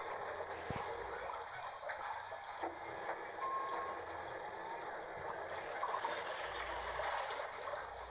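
Washing machine running with a steady rush of water, and a short electronic beep about three and a half seconds in.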